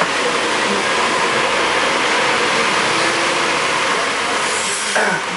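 Steady rushing noise of a moving tour bus heard from its open upper deck: wind and traffic noise over the bus running.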